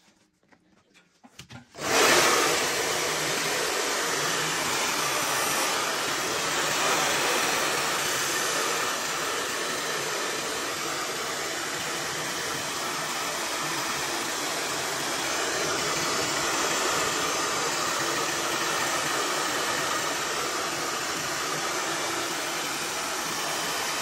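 Hand-held hair dryer switched on about two seconds in, then blowing steadily into a frosted-up freezer compartment to melt the ice build-up.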